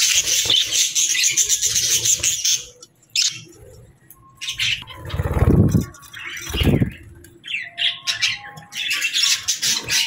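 Budgerigars chattering and chirping in a dense, warbling stream that breaks off about two and a half seconds in and picks up again near the end. Two low rustling bursts, like a flutter of wings, come about five and six and a half seconds in.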